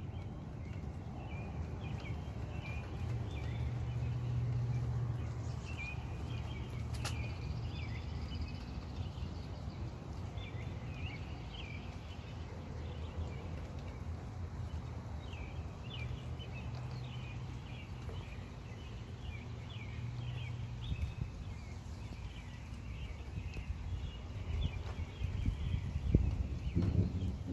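Outdoor storm ambience: steady chirping from small creatures, likely insects, birds or frogs, with low rumbles of distant thunder swelling twice. The chirps are short and come in busy clusters.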